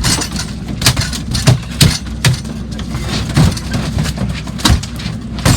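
A fishing boat's engine running steadily at low revs, with frequent irregular knocks and thumps over it.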